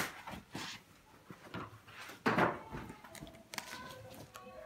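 Cotton suit fabric rustling and swishing as folded pieces are handled and spread out, with scattered light knocks; the loudest swish comes a little after two seconds in.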